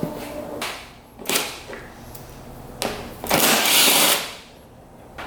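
A hand-held power tool running in three short bursts, the last one loudest and about a second long.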